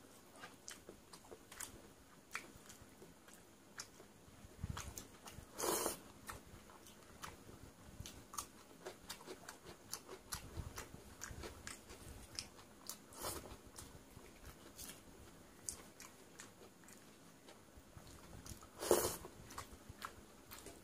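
Close-up eating sounds: fingers mixing wet, water-soaked rice and small clicks of chewing, with two louder mouthfuls about six seconds in and near the end.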